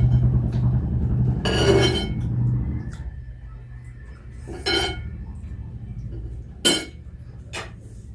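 Dishes and cutlery clinking during a meal: a few separate clinks, the sharpest and loudest near the end, over a low hum that fades out in the first few seconds.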